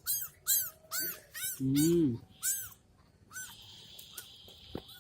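Kittens mewing: a quick run of short, high-pitched mews, roughly two a second, with one lower, longer and louder call about two seconds in. A faint steady hiss follows near the end.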